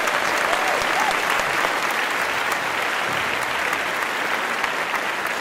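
Audience applauding steadily after a live song.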